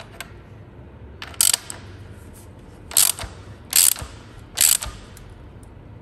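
Ratchet wrench clicking in four short strokes, snugging a bolt down partway rather than to final torque.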